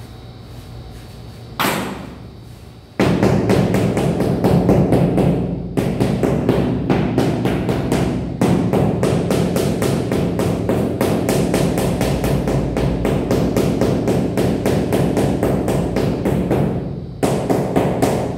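Mallet tapping rapidly and repeatedly on a large ceramic floor tile to bed it into the mortar and level it. The knocks are dull and even, about five or six a second, and start about three seconds in.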